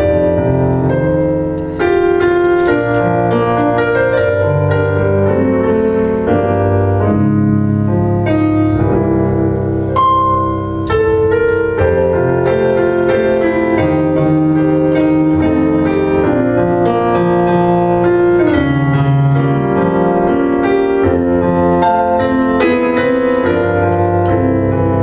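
Piano playing a slow hymn interlude in sustained chords, without singing.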